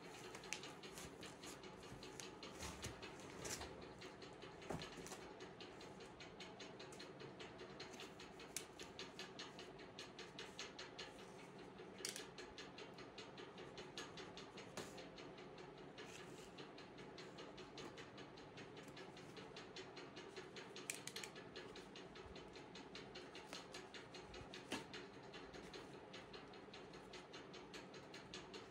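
Faint handling noise from unpacking a gas stove: a few scattered sharp clicks and light rustling of its foam and plastic packing, over a steady faint hum.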